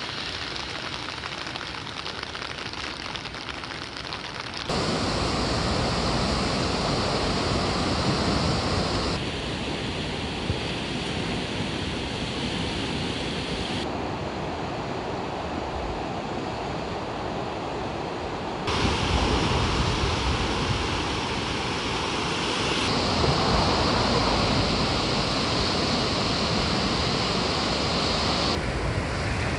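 Swollen, fast-flowing floodwater of the Kuma River rushing past, mixed with wind on the microphone: a steady noise that jumps abruptly in loudness and tone several times.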